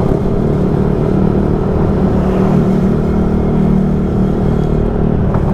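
Motor scooter engine running at a low cruising speed, a steady hum mixed with wind and road noise.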